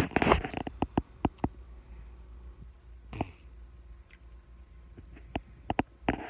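A sleeping person's breathing: one short, noisy breath about three seconds in, among a scatter of sharp clicks and a brief rustle at the start.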